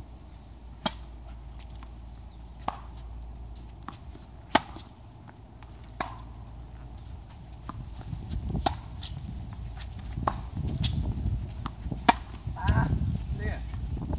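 Tennis ball struck by rackets and bouncing on a hard court during a rally: sharp single pops every one and a half to two seconds, over a steady high drone of insects. From about eight seconds in, a low uneven rumble rises under the hits.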